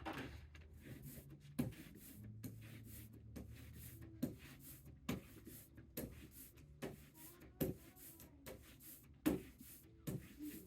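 Rubber brayer rolled back and forth and diagonally through tacky printing ink on an inking slab, blending two colours: a soft sticky hiss with irregular sharp ticks about every second.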